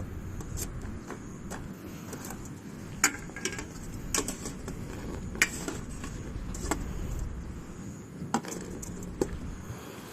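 Light clinks and knocks of camping gear being handled, scattered irregularly, over a low steady rumble.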